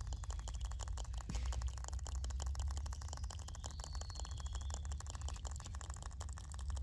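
Dense, fast crackling of tiny clicks over a steady low rumble, with faint high chirps near the start and again near the middle.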